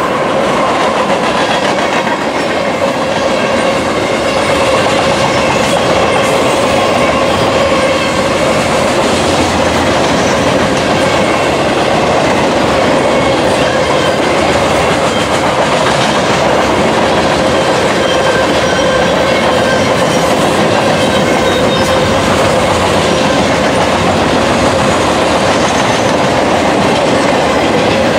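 Freight train cars rolling past at track side: a steady loud rumble and clickety-clack of steel wheels on the rails, with thin high ringing tones running through it.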